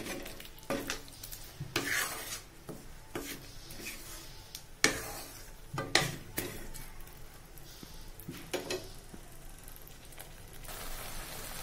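A spatula stirring and scraping a thick masala paste around a wok in irregular strokes. Under it runs a faint sizzle of the paste frying in oil as it is cooked down until the oil separates.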